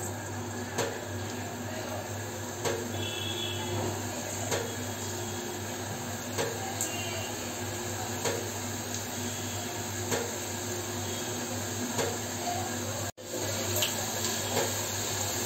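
Pieces of peanut-studded maida dough deep-frying in hot oil in a pan: a steady sizzling and bubbling, with faint ticks about every two seconds. The sound drops out for an instant near the end.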